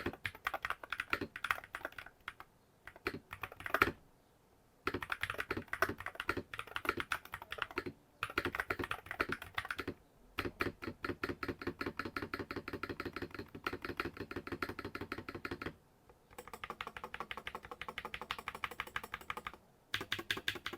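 Typing on an Akko TAC75 HE magnetic keyboard with linear switches and PBT keycaps: fast runs of key clacks separated by short pauses.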